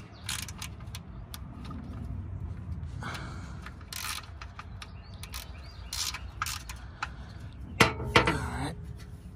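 Hand ratchet wrench clicking in short, irregular runs as the engine oil drain plug is run back in and tightened, with a couple of louder clacks near the end.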